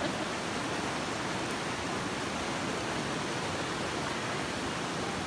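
Steady rushing of a shallow river flowing fast over rocks and small rapids.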